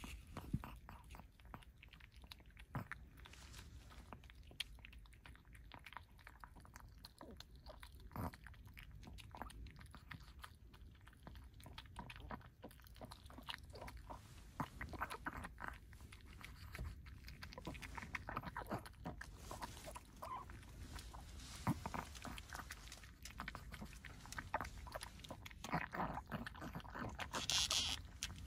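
A small dog crunching and chewing dry kibble, with quick, irregular crunches that come thicker and louder in the second half.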